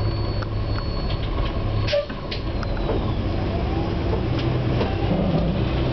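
Inside a NABI 416 transit bus on the move: steady low engine drone and road noise, with short rattles and clicks from the body. A thin high whistle sounds in the first second or so, the strange whistling noise that comes from the rear of the bus.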